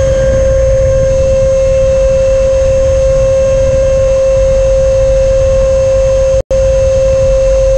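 Onboard sound of a Freewing Stinger's 64 mm electric ducted fan in flight: a steady, high whine over a low airflow rumble on the airframe-mounted camera. The pitch eases down slightly at the start, then holds level. The sound cuts out for an instant about six and a half seconds in.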